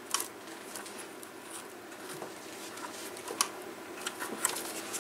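Light handling noise: a few small plastic clicks and knocks, a second or so apart, as foam-lined heater flaps are fitted into the plastic heater housing.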